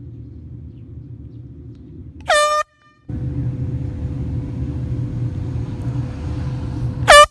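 Two short, loud blasts of an air horn, each rising slightly in pitch as it starts: one about two seconds in and one right at the end, over a steady low rumble.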